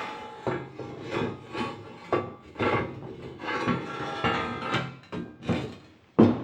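Steel frame knocking and scraping against a rock as it is worked back onto it: a run of irregular knocks, the loudest near the end. Background music plays underneath.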